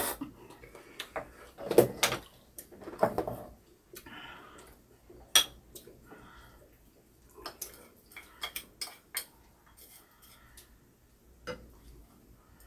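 Spoons and chopsticks clicking and clinking against ceramic soup bowls in scattered short taps, with a quick run of clicks a little past the middle, as bowls of beef rib soup are eaten.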